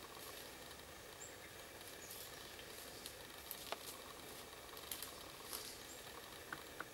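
Faint rustles and sharp crackles of dry fallen leaves under a white-tailed deer buck's hooves as it walks through leaf litter, over a steady hiss. The crackles are scattered, with a few louder ones in the second half.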